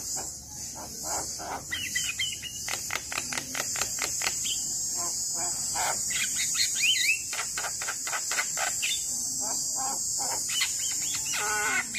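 Javan myna singing: a fast chattering run of short clicking and rasping notes, broken by occasional rising and falling whistles, over a steady high-pitched hum.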